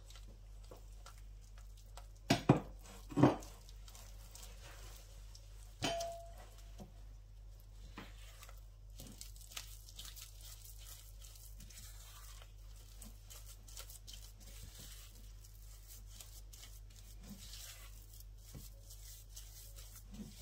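Silicone spatula stirring and scraping buttery biscuit crumbs in a glass bowl, a faint gritty scraping. A few sharp knocks against the glass come about two and three seconds in, and another near six seconds rings briefly.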